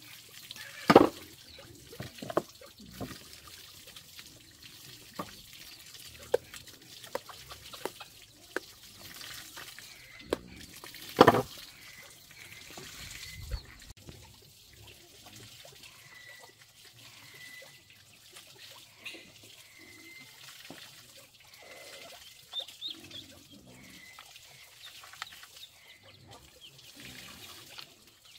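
Water splashing and dripping as squash pieces are washed and handled, with scattered small clicks and two sharp knocks, one about a second in and one about eleven seconds in.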